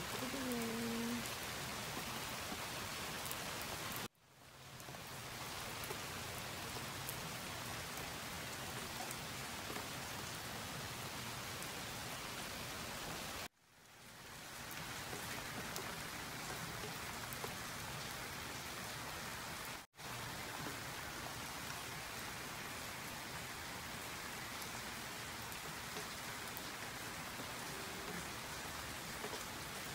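Steady rain falling on the garden, an even hiss of drops. It drops out briefly three times and fades back in.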